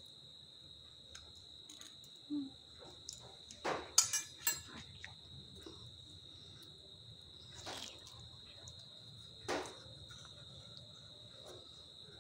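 A steady high-pitched insect trill, typical of a cricket, runs throughout. Over it come a few soft clicks and taps as whole snakehead fish are worked onto metal skewers, the sharpest a quick rattle of clicks about four seconds in.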